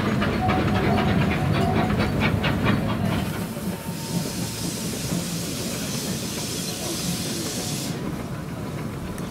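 Narrow-gauge steam locomotive working, its exhaust beating at a quick, even rhythm; a few seconds in this gives way to a steady hiss of escaping steam, which stops abruptly about four seconds later.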